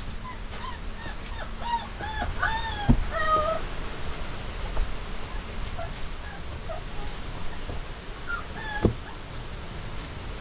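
Black Labrador Retriever puppy whimpering: a quick run of short, high, rising-and-falling whines in the first few seconds, then a few scattered fainter ones. Two sharp knocks, about three seconds in and near the end, are the loudest sounds.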